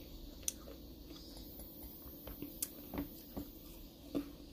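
Someone chewing juicy watermelon: scattered soft wet mouth clicks and smacks, with a few louder ones in the second half.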